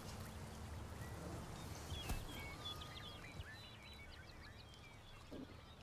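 Rural outdoor ambience: a low steady rumble with scattered short bird chirps that begin about two seconds in, and a single sharp click near the same moment.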